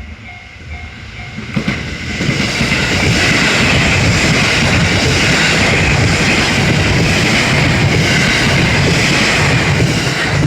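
A Japanese level-crossing bell dinging in a steady, quick repeating rhythm. About a second and a half in, a passing train drowns it out with a loud, steady rush of wheels on rail that lasts some eight seconds. The train fades near the end and the bell shows through again.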